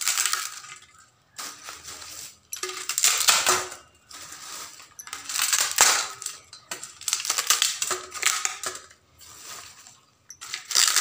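Crisp fried pani puri shells being crushed by hand in a stainless steel bowl. They crunch and crackle in repeated bursts about a second long, with short pauses between, as they are broken into small pieces.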